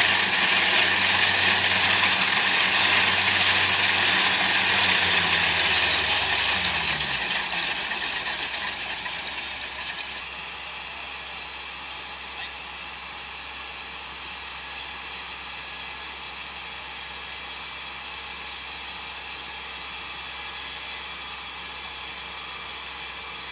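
Kubota DC70 Plus rice combine harvester running at work, its diesel engine and threshing machinery giving a loud, dense, noisy sound. About six seconds in the engine pitch falls and the sound dies down over a few seconds to a steady, much quieter hum with hiss.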